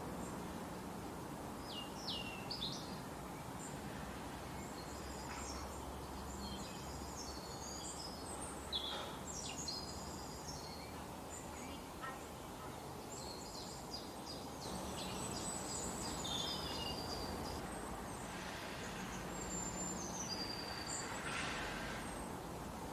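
Forest birds chirping and trilling in short phrases, several at once, over a steady hiss of background noise.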